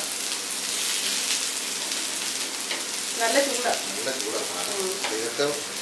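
Cubed eggplant sizzling in oil in a frying pan, stirred with a wooden spatula; a steady hiss throughout.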